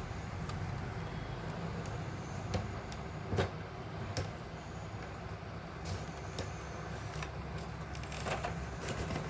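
Steady low background hum with scattered small clicks and taps from handling the printer parts and tissue paper.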